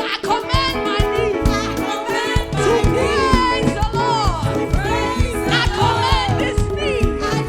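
Live gospel praise music: singing voices over a band with a steady drum beat.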